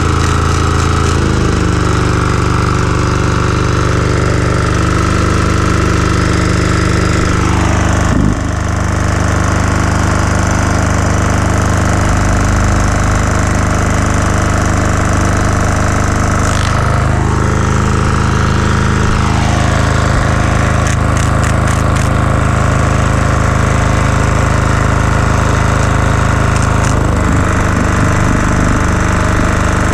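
Single-cylinder air-cooled 186F 10 hp diesel (a Yanmar clone) running a generator with no load, its steady note shifting and dipping a few times as the governor speed is adjusted to bring the output down from about 55 Hz.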